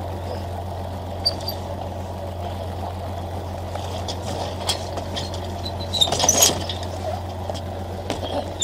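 Fishing boat's engine running steadily with a low hum, with a cluster of knocks and clatter about six seconds in.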